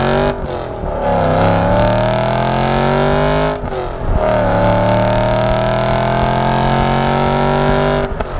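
BMW E92 M3's 4.0-litre V8 with its primary catalytic converters gutted, heard at the exhaust tips while accelerating hard through the manual gears. The pitch climbs, drops at a gear change about half a second in, climbs again, drops at a second gear change about three and a half seconds in, then rises more slowly until the throttle lifts near the end.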